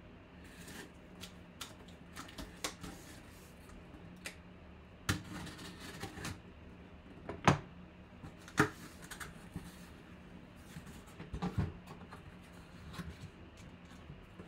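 A sealed cardboard box and its packaging being cut open and handled: scattered clicks, scrapes and rustles, with a few sharper knocks.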